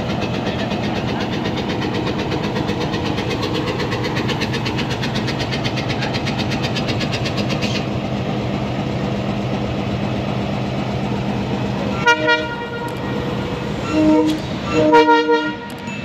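Diesel-electric locomotive's engine running with a steady low drone. Near the end the locomotive horn sounds three short blasts, the last the longest.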